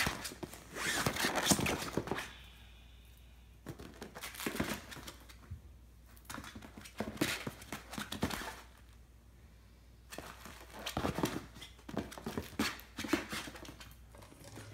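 A puppy scrambling and playing on a vinyl gym mat: irregular bursts of crinkling, scuffing and soft thuds from its paws and toys, with quieter spells between.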